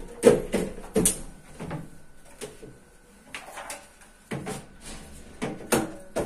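A cloth wiping the plastic inner liner of a refrigerator door, heard as a run of short rubs, knocks and clacks against the plastic. The sounds are loudest in the first second and again near the end.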